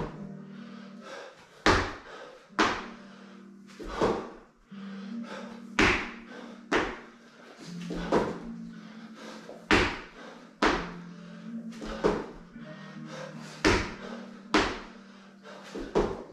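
Repeated thuds of hands and feet landing on rubber gym flooring during burpees, coming every second or two, often in pairs about a second apart.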